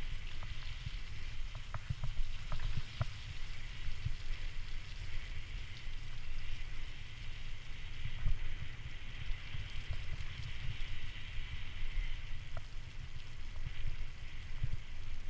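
Bicycle tyres rolling over a wet, muddy towpath with a steady hiss, under a gusty low rumble of wind buffeting a GoPro's microphone, with a few faint clicks from the bike.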